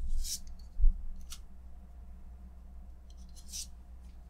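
Magic: The Gathering cards slid one off another in the hand as a pack is flipped through: three short swishes of card rubbing on card, with a couple of soft low bumps in the first second.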